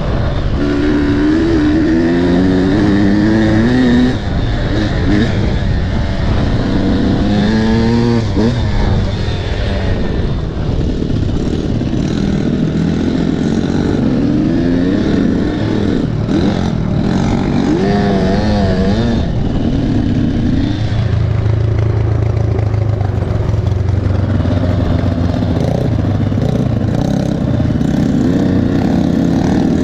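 300 cc two-stroke enduro motorcycle engine being ridden, its revs repeatedly climbing and dropping as the throttle is worked, with wind and riding noise on the bike-mounted microphone.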